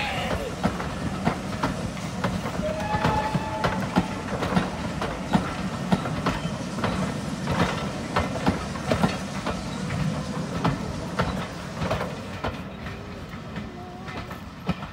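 Passenger coaches of a steam-hauled train rolling past at low speed, their wheels clicking over the rail joints over a steady rumble. The sound fades near the end as the train draws away.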